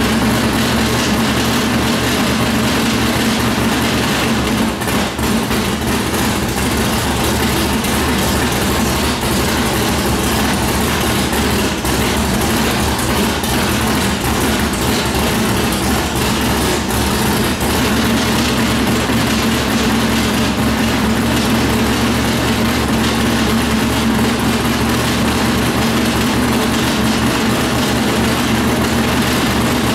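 Plymouth 440 big-block V8 in a 1970 Cuda drag car idling steadily and loudly, on its first run since being rebuilt after breaking a connecting rod.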